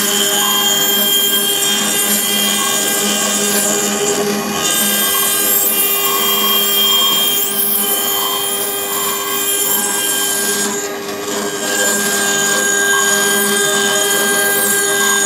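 CNC engraving machine's spindle running with a steady whine while its bit grinds into a green stone under a water coolant jet. The grinding noise eases briefly twice, about four and eleven seconds in.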